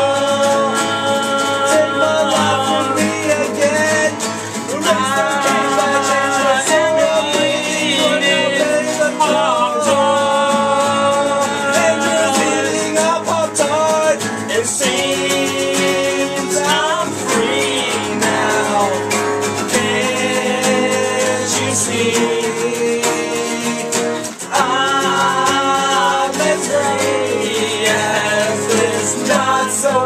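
Several acoustic guitars strumming and picking together in a song, with a sung vocal line over them.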